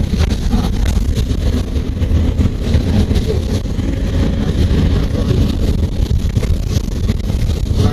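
Steady low engine and road rumble heard from inside a moving vehicle on a wet road, with light rattling throughout.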